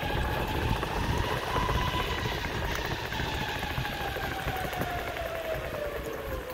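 Ownboard Zeus Pro electric skateboard riding: the whine of its belt-driven motors rises slightly over the first two seconds, then falls steadily as the board slows. Under it is the steady rumble of the TPU wheels on the road.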